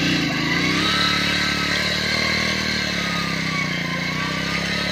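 Motorcycle engine revving up over the first second, then running steadily under load while dragging a bamboo ladder harrow through wet paddy mud, with a wavering whine.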